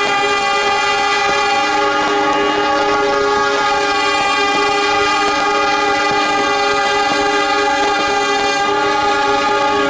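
Diesel locomotive horns blowing together in one long, steady blast, several horn tones sounding at once as a chord. A lower tone joins about two seconds in and drops out near the end.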